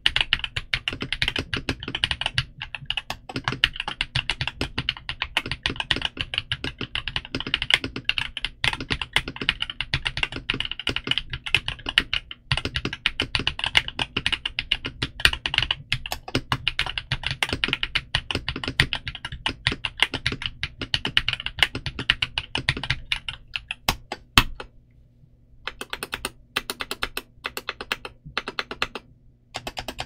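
Fast, continuous typing on a mechanical keyboard with Kiiboom Taro Cream Milk switches, a polycarbonate (PC) plate and dye-sublimated PBT Cherry-profile keycaps, heard close up. About 24 seconds in, one loud keystroke is followed by a short pause, then slower, separate key presses.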